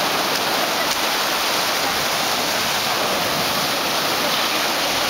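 Small ocean waves breaking close to shore, with foam washing up the beach: a steady rush of surf.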